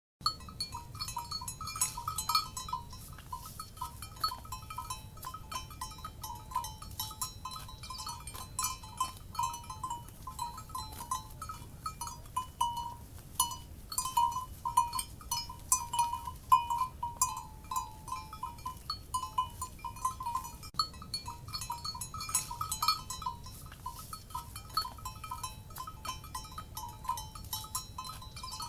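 Several cowbells clanking irregularly and without pause, their ringing tones overlapping as the animals wearing them move.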